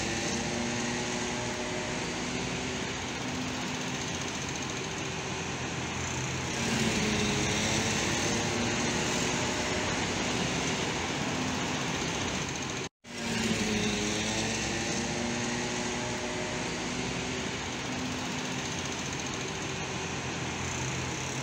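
Slow, congested street traffic: car and van engines running steadily as vehicles creep past close by, a little louder about six or seven seconds in. The sound cuts out for an instant about 13 seconds in.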